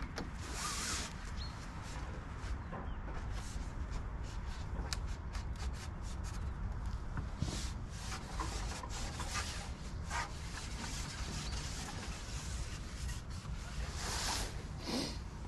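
Rustling and scattered light clicks over a steady low rumble, with louder rustles about half a second in and again near the end.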